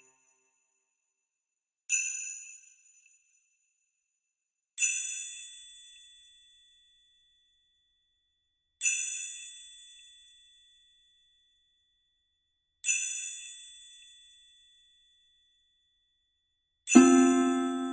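Background music of sparse, high, bell-like notes, struck singly every three or four seconds and each ringing out and fading. Near the end a fuller, lower note rings out.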